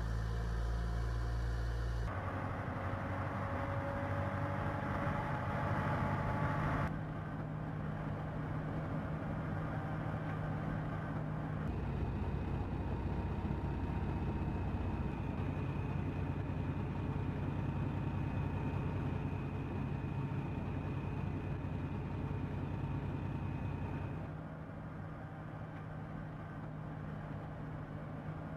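Heavy vehicle engine running steadily, a low hum with a few steady higher tones. The sound changes abruptly about 2, 7, 12 and 24 seconds in, as separate clips are spliced together.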